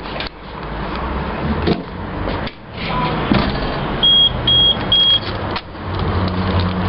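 Electronic vending machine beeping three short, even high beeps about half a second apart, over a steady low mechanical hum.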